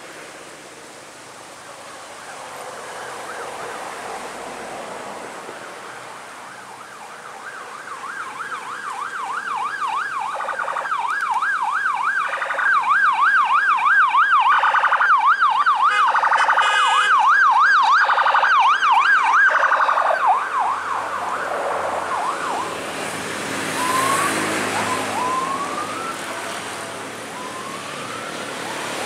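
Emergency vehicle siren with a fast up-and-down warble, growing louder from about eight seconds in, loudest in the middle and fading away after about twenty seconds, as if passing by. A few short rising chirps follow near the end.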